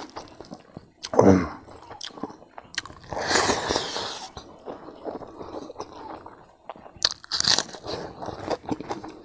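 Close-miked chewing and crunching of a mouthful of food, with many small wet clicks and crackles and two louder crunchy stretches near the middle and about three quarters of the way in. A brief voiced hum comes about a second in.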